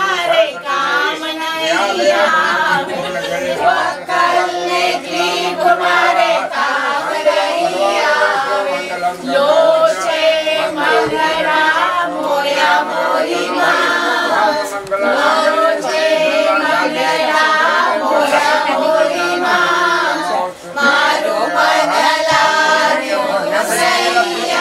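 A group of voices singing a Gujarati Jain devotional song together, continuously, over a steady low held tone.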